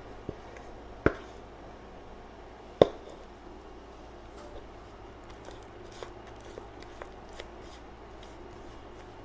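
Spatula scraping batter out of a metal mixing bowl, with two sharp knocks against the bowl about one and three seconds in, then a run of light ticks.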